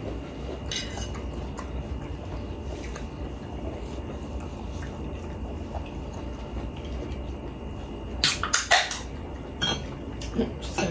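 Light clicks and taps of tableware being handled at a meal: a quick run of sharp clicks about eight seconds in and a few more near the end, over a low steady room hum.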